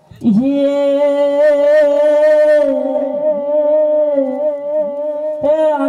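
A singer opening a Gujarati devotional doha: the voice scoops up into one long held note, wavering slightly, then moves into a new phrase near the end.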